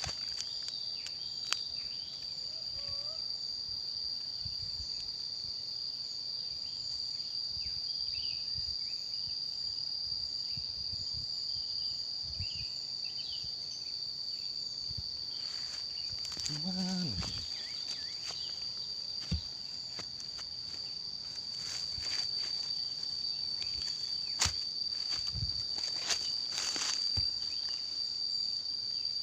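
Insects shrilling steadily in one high, unbroken tone, with scattered rustling footsteps through undergrowth and a few sharp clicks.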